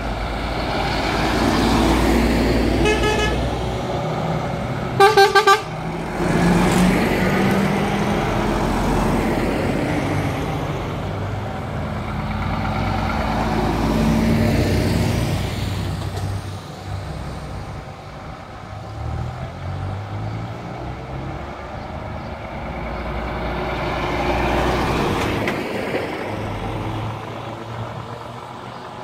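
Lorries in a convoy driving past one after another, their diesel engines swelling as each goes by. A truck horn sounds in short quick blasts about three seconds in, and louder about five seconds in.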